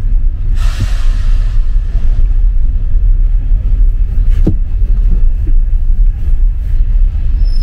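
Low, heavy rumble inside a passenger train carriage at a station arrival. A short hiss comes about a second in, and a single sharp click near the middle.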